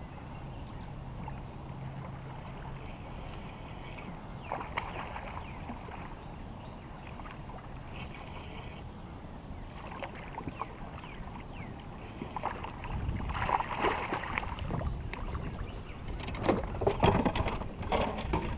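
Sounds of a small fishing boat on a river: low water and hull noise with a faint steady hum in the first few seconds, then louder handling noise and a quick run of knocks and rattles near the end.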